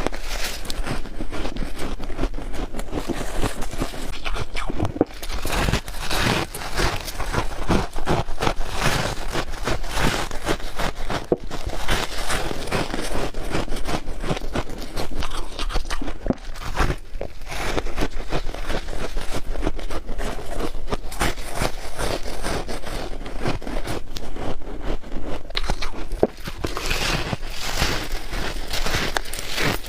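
Close-up crunching of soft freezer frost being bitten and chewed, a dense run of crisp squeaky crackles one after another.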